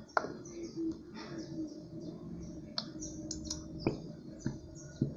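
Scattered clicks and small knocks of a plastic glue bottle and container being handled as glue is poured in, with faint bird chirps behind.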